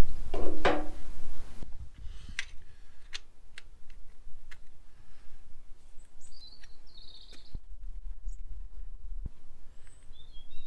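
Quiet outdoor ambience with a few short bird chirps and scattered light clicks and taps. A louder stretch of low rumble with a couple of knocks comes first, cutting off about two seconds in.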